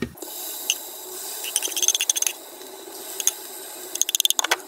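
Hot oil sizzling steadily in a small saucepan as vegetable fritters (bakwan) fry, with bursts of quick crackles and clicks about one and a half seconds in and again near the end.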